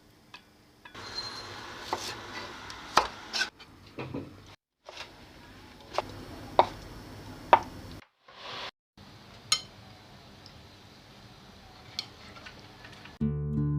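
Kitchen work sounds: scattered sharp clinks and knocks of utensils against dishes and pans over a low background, in short stretches broken by brief abrupt silences. Guitar music comes in just before the end.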